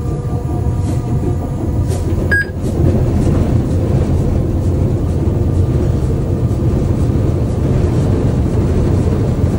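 Alco RS-1 locomotive's six-cylinder turbocharged diesel engine running, heard from inside the cab. After a short click about two and a half seconds in, the engine sound gets louder.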